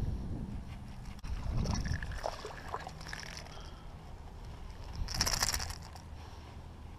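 A small largemouth bass being fought and landed on a spinning rod at a pond's edge. Wind buffets the microphone at first, then come light splashing and handling noises, and a short, louder splashy burst about five seconds in as the fish is lifted clear of the water.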